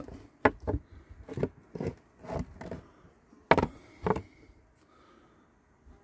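A series of light knocks and clacks from handling the Flow Hive 2's white plastic debris tray, about eight of them spread irregularly over the first four seconds.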